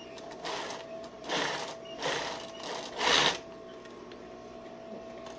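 Industrial sewing machine stitching in several short bursts, the last and loudest about three seconds in, over a steady hum.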